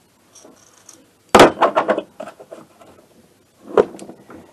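Workshop handling noise from a dismantled moped engine: a sharp knock about a second in, then a brief clatter of metal parts, with a second knock near the end.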